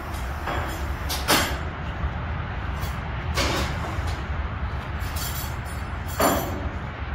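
A large engine idling with a steady low rumble. Three short hissing bursts come over it, about two to three seconds apart.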